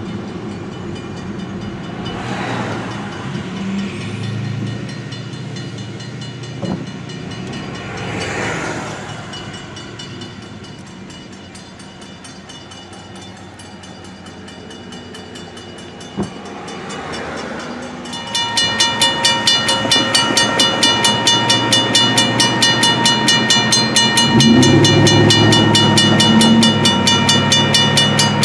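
Car road noise, with a couple of vehicles passing, gives way partway through to a railroad grade-crossing warning bell ringing in rapid, even strokes, its signals activated for an approaching train. A lower drone comes in for a few seconds near the end.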